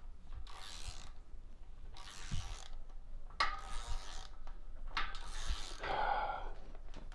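Hand ratchet clicking in a series of short strokes as main bearing cap bolts are run down, about six bursts of ratcheting a second or so apart.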